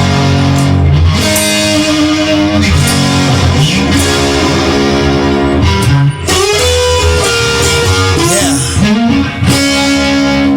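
Instrumental blues-rock music led by electric guitar, with sliding notes over bass.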